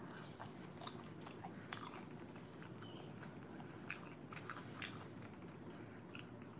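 Close-miked chewing of a mouthful of fried food: faint, scattered wet mouth clicks and small crunches.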